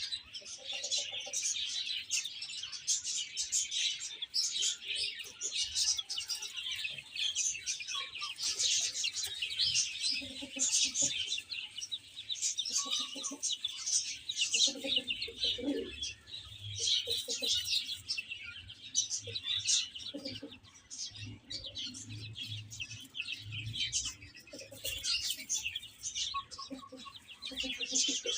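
A brood of baby chicks peeping nonstop, many short high chirps overlapping, with a few lower calls among them.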